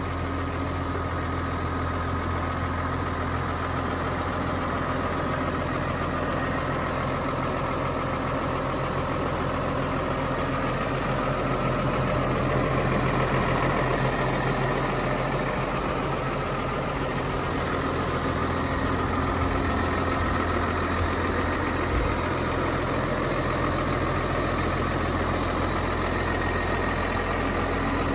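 New Holland T7.200 tractor's six-cylinder diesel engine idling steadily.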